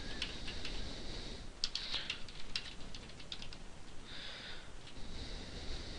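Typing on a computer keyboard: irregular keystroke clicks entering a short sentence, with brief pauses between bursts of keys.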